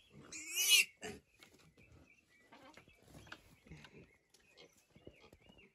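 A piglet gives one brief, shrill squeal about half a second in, the loudest sound here; after it only faint, scattered small sounds.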